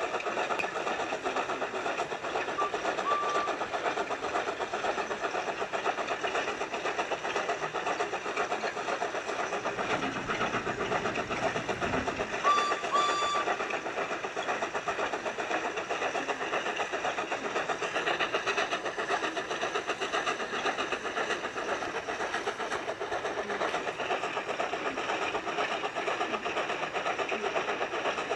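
Train running steadily along the track, a continuous rattling rumble, with a short high tone about halfway through.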